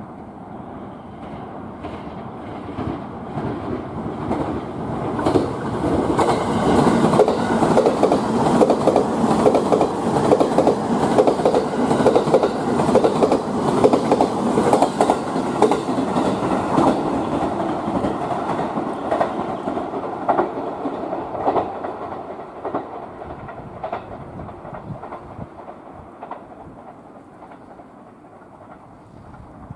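E657 series limited-express electric train passing through the station, with its wheels clicking rhythmically over the rail joints. It grows louder as the cars run close by, then fades away.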